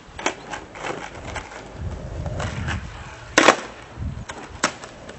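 A skateboard's wheels rolling on asphalt, then one loud sharp clack about three and a half seconds in as the board comes down on the ground in a boneless, and another lighter click about a second later. A few light taps of steps come first.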